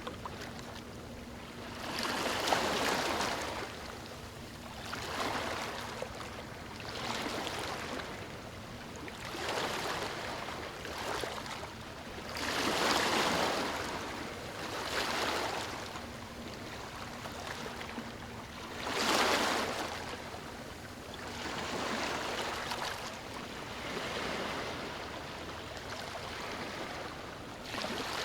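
Small waves washing onto a beach, each rush of surf swelling and fading every two to three seconds, the biggest about two seconds in, near the middle and about two-thirds through.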